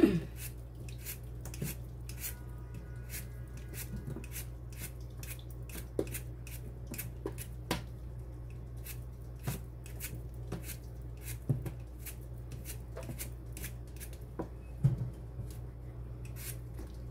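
Potatoes being peeled with a Y-shaped vegetable peeler: quick scraping strokes of the blade across the skin, a few a second, with a few louder knocks, over a steady low hum.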